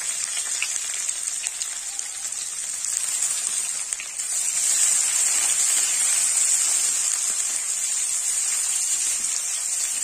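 Chopped onions sizzling in hot mustard oil in a kadai as they are stirred, a steady frying hiss that grows louder about four seconds in.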